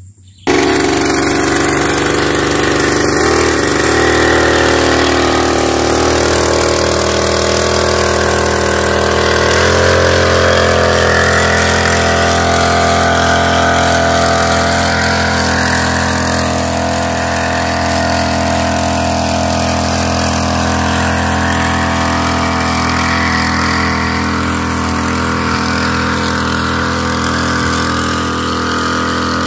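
Small engine of a knapsack power sprayer running steadily while spraying, coming in abruptly about half a second in.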